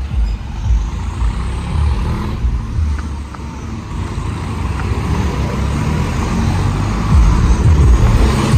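Diesel tractor engines running as the tractors drive along. The engine sound grows louder about seven seconds in.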